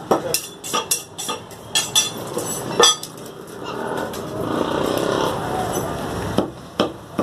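Butcher's cleaver chopping meat on a wooden stump block: a quick run of sharp knocks. In the middle a passing motor vehicle swells and fades, the loudest sound, and a few more knocks follow near the end.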